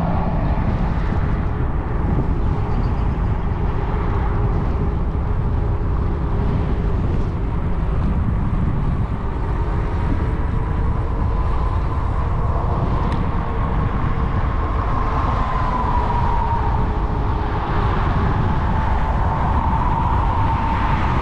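Wind buffeting the microphone of a moving e-bike, with a thin whine from the e-bike's electric motor that slowly rises and falls in pitch.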